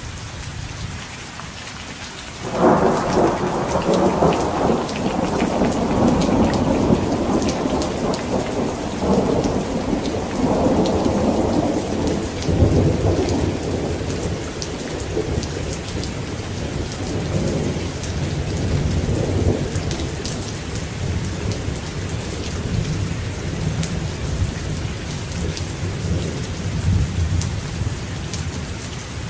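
Steady rain falling. About two and a half seconds in, thunder breaks suddenly and rumbles on in rolling pulses, fading slowly over some twenty seconds.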